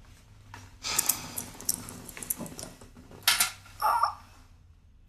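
Soft rustling of clothes and sofa cushions with light clicks and knocks as a person shifts and settles back on a sofa, with two louder brief rustles near the end.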